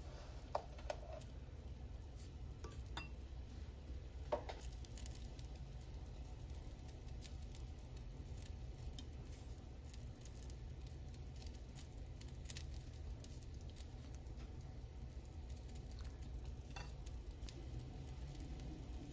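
Kitchen work sounds: scattered light clicks and a few brief ringing clinks of dishes and utensils over a steady low hum.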